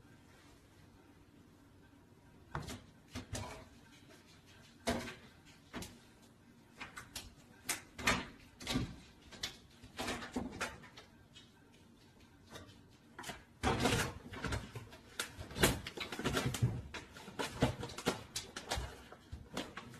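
A series of irregular knocks and thumps, sparse at first and coming thick and fast about two-thirds of the way in.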